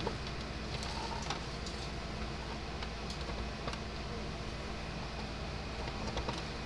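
Faint light ticks and rustles of hands handling wiring and a plastic enclosure, over a steady low background hum.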